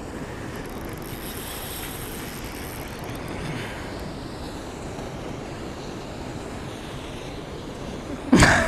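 Steady rush of water pouring out of a dam's spillway gates, an even noise with no speech over it. Near the end comes a loud, sharp knock or clatter.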